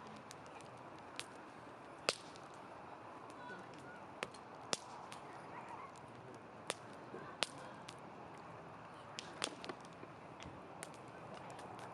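Wood fire crackling: sharp pops and snaps at irregular intervals over a soft, steady hiss of burning, the loudest pops about two seconds in and again a little later.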